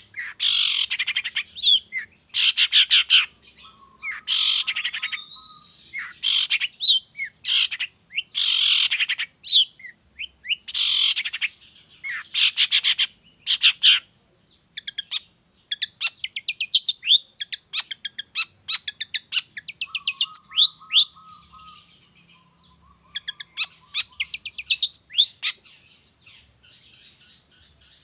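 Long-tailed shrike (cendet) singing: a string of loud, harsh rasping bursts, each under a second. After the middle, the song gives way to quieter, varied chattering and a brief low warble.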